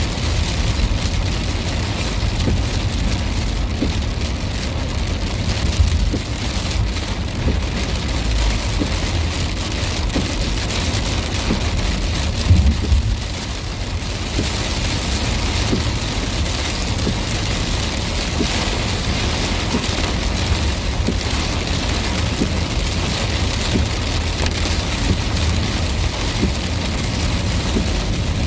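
Heavy rain pelting a car's windscreen and roof, heard from inside the moving car over a steady low road rumble, with a short louder rumble a little under halfway through.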